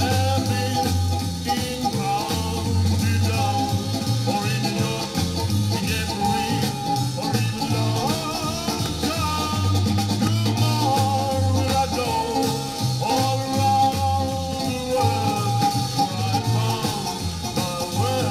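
1963 Swedish pop-rock single playing from a vinyl record on a turntable: band music with a steady beat.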